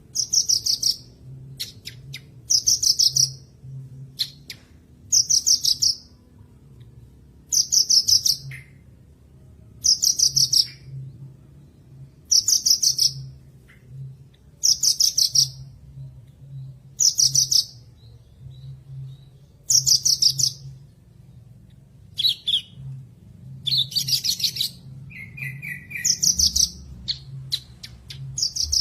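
Horsfield's bush lark (branjangan) song: short, high, rapid trilled phrases repeated about every two to two and a half seconds, played as a tutor recording to prompt a silent captive lark to sing.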